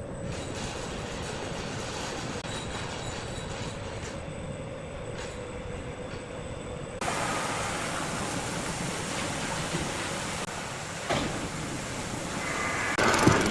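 Large sawmill saw running and cutting through timber with a steady mechanical noise, which gets suddenly louder and harsher about halfway through and builds again near the end.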